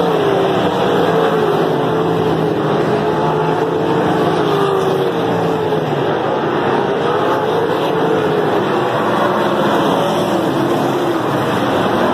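A field of winged sprint cars racing on a dirt oval, several V8 engines at full song at once, their pitches rising and falling as the drivers get on and off the throttle.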